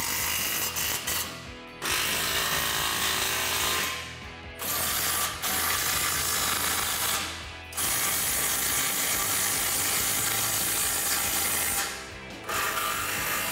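Cordless electric ratchet running in five runs of a few seconds each, with short pauses between, tightening down exhaust pipe clamps.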